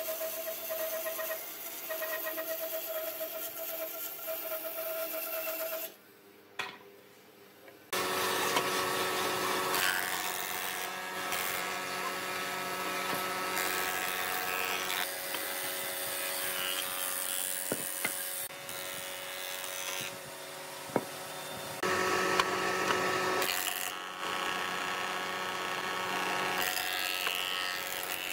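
Wood lathe running, its motor hum steady under the scraping of a turning tool cutting into the spinning wood. The sound drops away for about two seconds around six seconds in, then returns fuller and busier.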